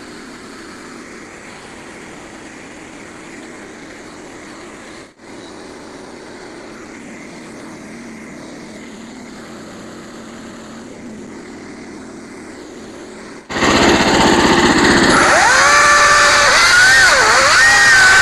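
Small gasoline engine running: a faint steady hum at first, then, after a sudden jump about 13 seconds in, much louder, its pitch wavering up and down.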